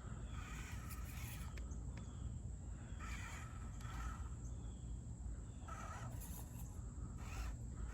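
Faint whir of an SCX24 micro crawler's 50-turn brushed motor and geartrain creeping along in its low power setting, with a few brief rasping sounds over a steady low outdoor rumble.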